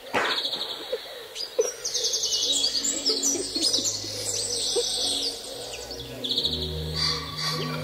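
Birds chirping in quick, high trilled runs, with low sustained music tones entering after about two and a half seconds and swelling near the end.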